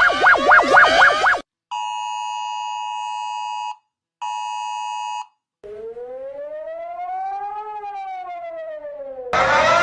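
A string of emergency alert alarm tones. A fast warbling siren cuts off about a second and a half in. Then come two steady two-tone buzzes, one about two seconds long and one about one second long. A siren tone then rises slowly and falls back over about four seconds, and near the end a louder siren starts rising.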